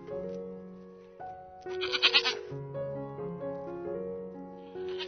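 Background music with a steady melody, over which an animal call sounds twice: a short, rapidly wavering call about a second long, the second starting near the end.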